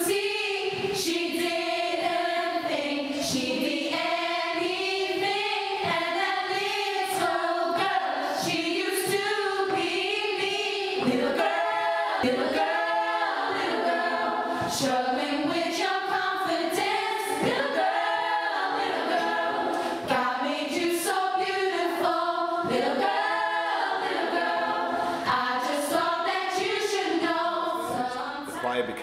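Youth choir of teenage voices, mostly girls, singing together in a rehearsal room; the singing breaks off near the end.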